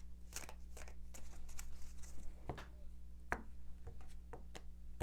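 Tarot cards being handled: short papery rustles, snaps and light taps every second or so as cards are shuffled and drawn from the deck. A low steady electrical hum runs underneath.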